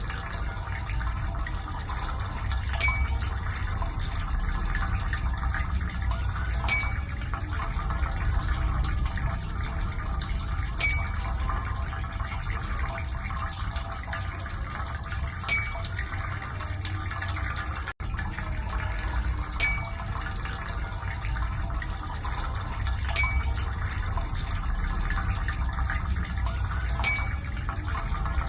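Steady watery rushing with a low hum and crackle, from ear-cleaning equipment working liquid and wax in the ear canal. A short high blip cuts through about every four seconds.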